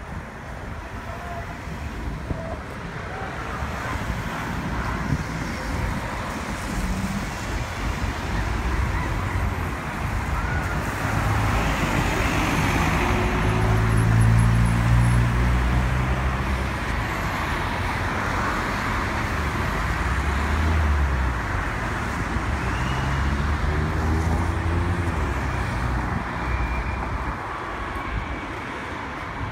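City street traffic: cars and vans driving past, the engine hum rising and fading as each goes by, loudest about halfway through.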